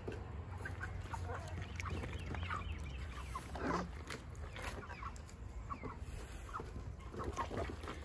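Chickens clucking in short, scattered calls throughout, over a low steady hum.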